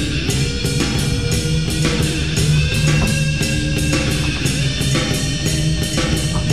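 Rock music with guitar and drums, a steady driving beat.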